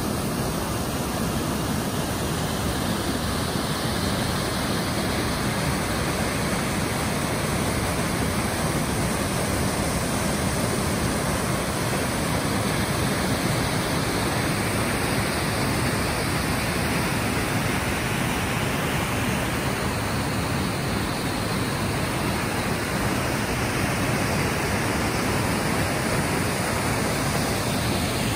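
Small waterfall on a mountain stream, water pouring steadily between boulders: an even, continuous rush of falling water.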